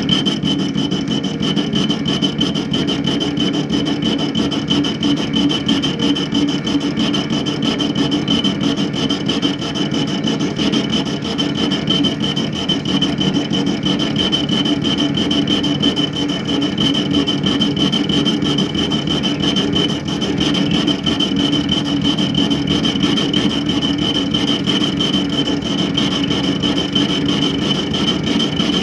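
Mini lathe running with a steady high whine while a cutting tool takes a continuous cut in the metal tailstock base, a steady scraping sound.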